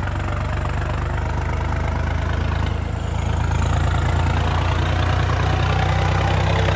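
Tractor's diesel engine idling steadily, a little louder from about three seconds in.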